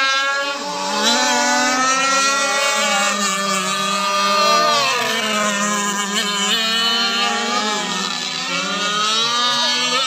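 Several radio-controlled racing powerboats running flat out at once, their high-revving engines whining together, each pitch rising and falling as the boats race around the course.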